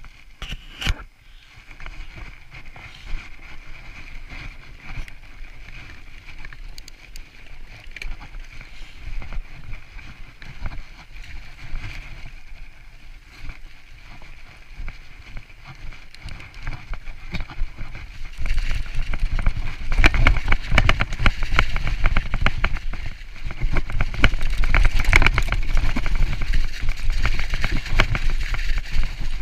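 Mountain bike riding downhill over a snowy trail: tyres crunching through snow and slush, with a rattle of small clicks from the bike and a low rumble. It gets louder about two-thirds of the way through, where the track turns to slush and mud.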